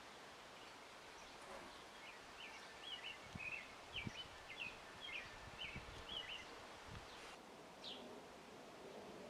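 A songbird singing a run of short, quick chirping notes for about five seconds, with one more call near the end, over a steady outdoor hiss. A few soft low thumps fall in the middle.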